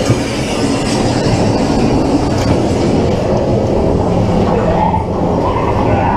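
Ghost train car running along its rail track, a steady rattle and rumble of its wheels.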